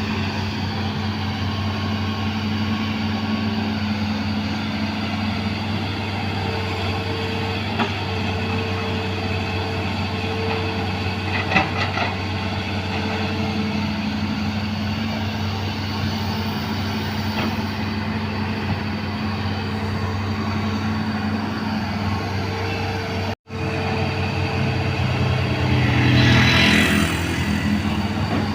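Diesel engine of a 20-ton hydraulic crawler excavator running steadily under working load, with a few short metallic clanks. After a brief break in the sound, a louder rushing stretch comes near the end.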